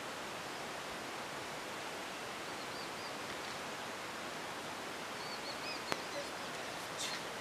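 Steady outdoor ambient hiss with faint high bird chirps a few times, and a single sharp click about six seconds in.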